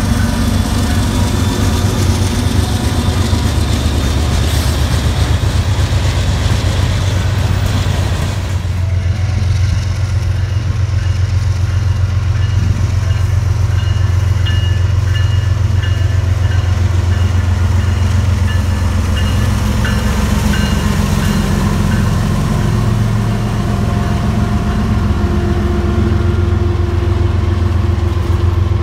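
Freight trains passing close by: a diesel locomotive and then rail cars rolling over the track, with a heavy steady low rumble and thin, faint squealing tones from the wheels. About eight seconds in the higher hiss falls away while the low rumble of the rolling cars goes on.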